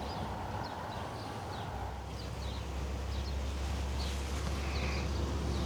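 Small birds chirping in short, quick calls, scattered over a steady low rumble that grows stronger about two seconds in.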